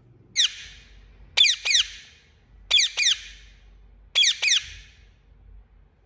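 Indian ringneck parakeet giving short, sharp, high-pitched chirps that each fall in pitch: one single chirp, then three quick pairs about a second and a half apart.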